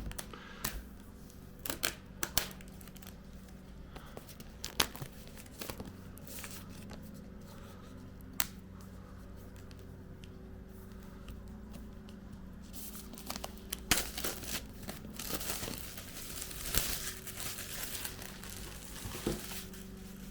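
AirPods Max box packaging being opened by hand: paper and cardboard crinkling and tearing, with scattered clicks and rustles and a longer stretch of crinkling and tearing in the second half.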